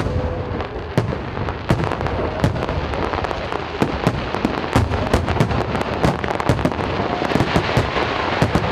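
New Year's fireworks and firecrackers going off: a dense run of sharp bangs, several a second, over a continuous crackle.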